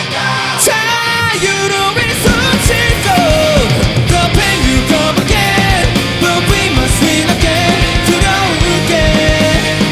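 Rock band playing live: an instrumental stretch of punk-rock with a lead melody that slides and bends in pitch over distorted guitars, bass and drums. The full band with drums comes in hard about two seconds in.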